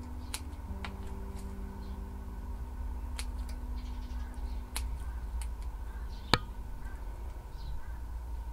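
Pruning shears snipping leaves off a plant cutting: a few sharp, scattered clicks, the loudest one about six seconds in.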